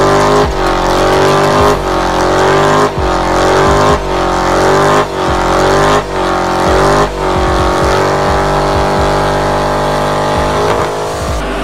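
Dodge muscle car engine held at high revs during a smoky burnout, its rear tyres spinning on the pavement. The revs dip and climb back about once a second, then hold steady for the last few seconds.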